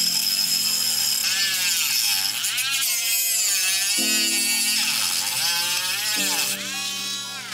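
Small hand-held rotary tool with a cutting disc running at high speed and grinding through a plastic model car body, its whine repeatedly rising and falling in pitch as the disc cuts.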